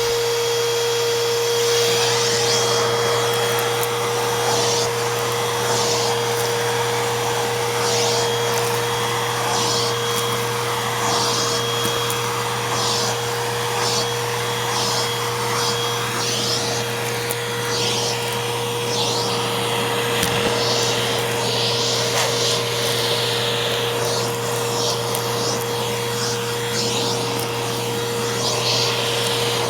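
Eureka Boss Smartvac 4870 upright vacuum cleaner running steadily, its motor giving a constant whine, with short hissy swells every second or two as it works.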